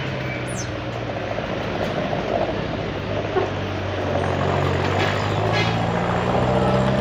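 Heavy diesel truck engines working in low gear, a steady engine note over general traffic noise that grows louder about four seconds in.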